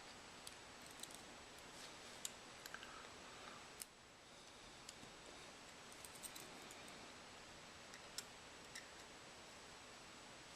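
Faint, scattered small metallic clicks and ticks of a dial caliper and small tools being handled during reassembly, over a steady low hiss.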